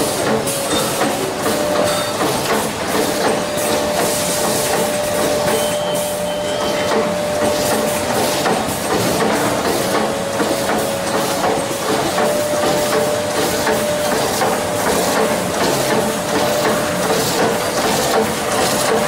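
Acerpack SAB-1250V-T2 bubble bag making machine running steadily: a dense mechanical clatter with a faint steady whine.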